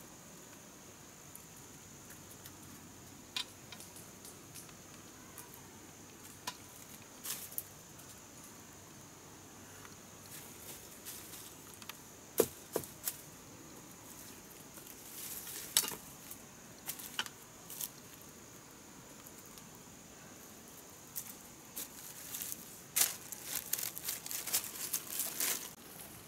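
Insects buzzing steadily at a high pitch, with scattered sharp snaps and crackles of dry leaves and twigs that come thicker near the end.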